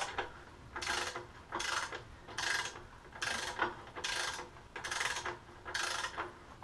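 Ratchet head of a torque wrench clicking in short bursts, about seven strokes a little under a second apart, as the swing arm pivot bolt is run in tighter.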